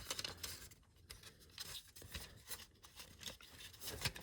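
Faint, irregular clicks and scrapes of an opened Ei smoke alarm being handled.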